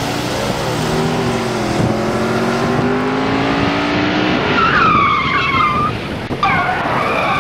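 Car engine running and revving, its pitch slowly rising, then tyres squealing about five seconds in.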